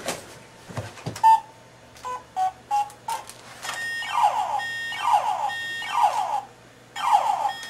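Electronic sound effects from a battery-powered toy gun: a few short beeps of different pitches, then a string of falling 'pew' zaps, one every second or less.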